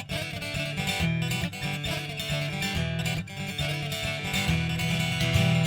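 Background music: acoustic guitar with a steady rhythm, in a country or bluegrass style.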